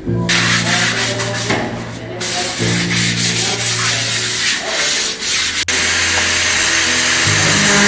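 Abrasive sanding noise: separate strokes at first, then continuous from about two-thirds of the way in, over a low steady hum.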